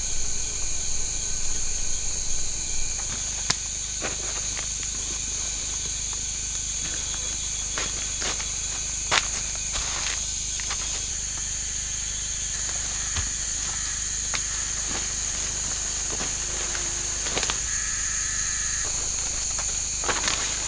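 A steady high-pitched chorus of forest insects, with scattered snaps and rustles of a person moving through leafy undergrowth.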